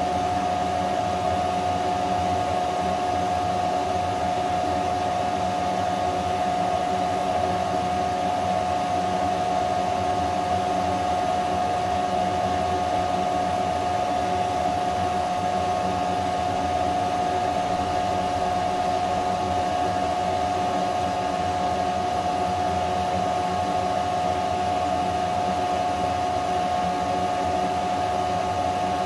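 Jiccoda L1 10-watt diode laser engraver running while it works: the laser head's cooling fan and the air-assist blowing give a steady whir with one constant high hum over a rush of air, unchanging throughout.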